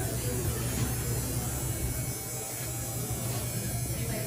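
A steady low buzzing hum.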